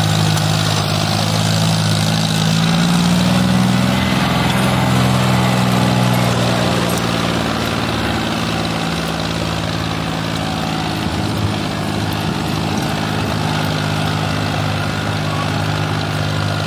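John Deere 5036 D tractor's three-cylinder diesel engine running steadily under load while pulling a disc harrow through soil. It is a little louder in the first few seconds, then eases slightly as the tractor moves away.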